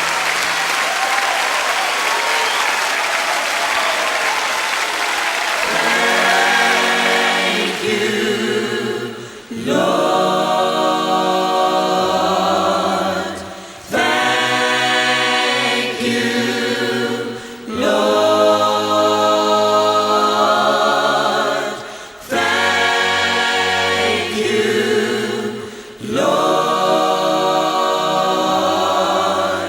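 Applause for about the first six seconds, giving way to a choir singing worship music in phrases of a few seconds each, with short breaks between them.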